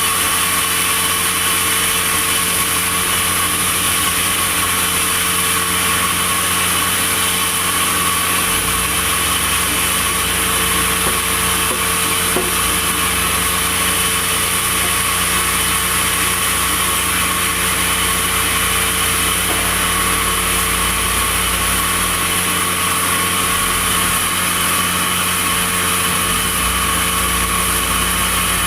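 Sawmill machinery running steadily, a continuous machine hum with a high whine over it; the deep low end swells about a third of the way in and again near the end.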